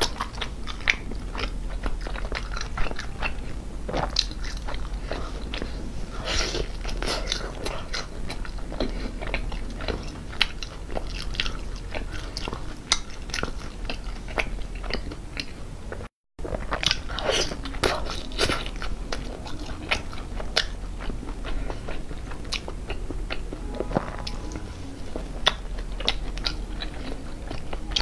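Close-miked chewing and biting of food, with many wet clicks and crunches from the mouth, picked up on a lapel microphone. The sound cuts out completely for a moment about halfway through.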